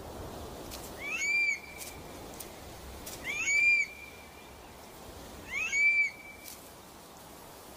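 Eurasian stone-curlew calling: three loud whistled calls about two seconds apart, each sliding up and then holding its pitch briefly, with a fourth call starting right at the end.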